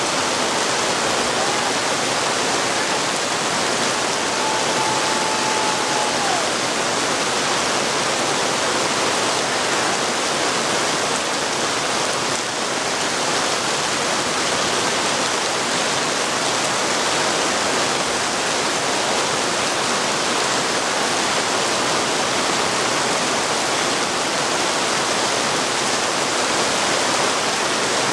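Heavy rain pouring steadily, a dense even hiss with no let-up. A faint held tone sounds for a few seconds about a second in.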